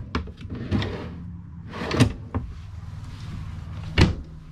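Pull-out cabinet drawers sliding open and shut on metal drawer slides, with several knocks as they reach their stops, the loudest about four seconds in.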